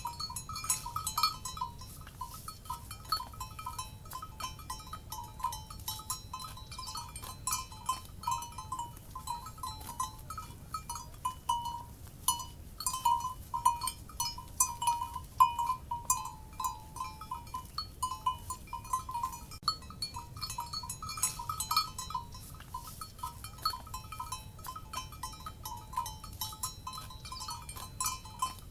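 Cowbells on grazing livestock clanking irregularly, several bells ringing at once with overlapping tones. A faint low rumble runs underneath.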